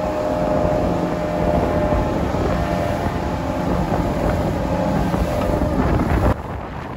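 Motorboat running at speed, with a steady engine drone, the rush of water and heavy wind on the microphone. It cuts off suddenly near the end, leaving quieter wind noise.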